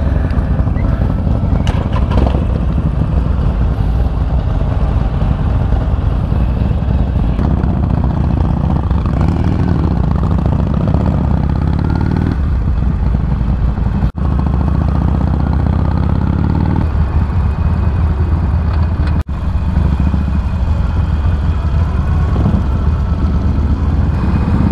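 Harley-Davidson V-twin motorcycle engine running under way, its deep rumble steady with the revs rising twice as it accelerates. The sound cuts out for an instant twice.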